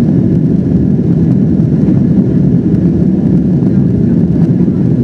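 Steady, loud, low-pitched engine and airflow noise inside the cabin of a Boeing 767-400ER, from its General Electric CF6 turbofans, in the climb after takeoff.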